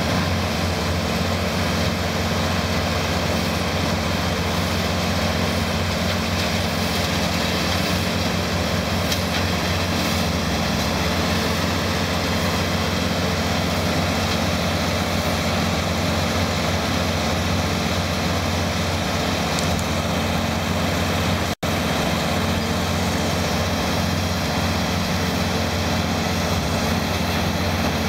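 Heavy equipment engine running steadily at a constant speed, with one momentary break about three quarters of the way through.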